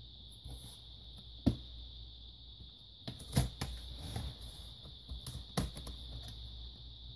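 Scattered sharp clicks and light knocks of hand tools and plastic parts being handled during a laptop teardown, the sharpest about a second and a half in and a cluster of them between about three and six seconds.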